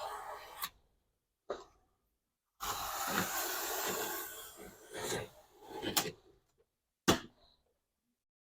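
Razor knife blade drawn through foam board: a scraping cut lasting about two seconds, with short knocks and rustles of handling before and after.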